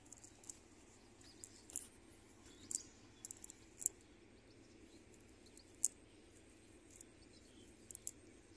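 Faint, scattered light clicks and rustling of a cast net being gathered and sorted by hand, the weights along its edge knocking together, over a low steady outdoor background.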